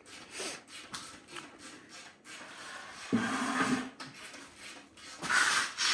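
Light clinks and scraping of tools and metal parts as a transmission is worked loose from a VR6 engine, with a short strained vocal sound about three seconds in and a rustling scrape near the end.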